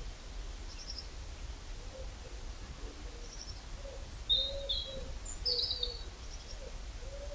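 Small woodland birds chirping: scattered short, high trilled chirps, with a louder cluster of calls about four seconds in, over a low steady rumble.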